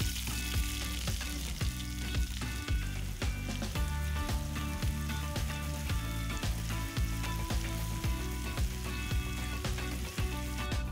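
Sliced red onions sizzling in hot vegetable oil in a frying pan, the sizzle starting as they drop in and going on as they are stirred with a silicone spatula. Background music with a steady beat plays over it.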